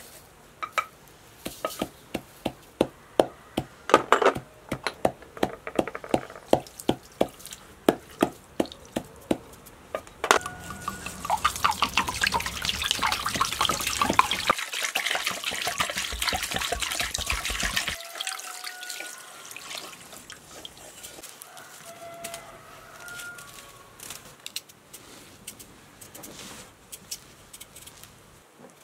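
Hands seasoning a raw goose in a metal bowl: sticky, wet pats and slaps on the skin, about two or three a second. From about ten seconds in, a denser stretch of rattling as a wooden spice shaker is shaken over the bird, then quieter handling.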